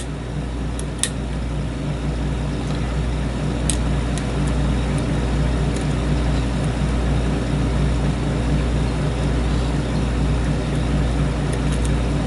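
Steady low machine hum, with a few faint sharp clicks of lock picks working the pins inside a pin-tumbler challenge lock.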